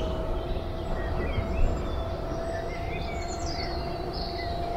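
A narrowboat's electric drive motor runs with a steady, thin whine that rises gently in pitch as it is turned up, purring like a model railway motor. A low rumble of water and wind sits underneath, and birds chirp now and then.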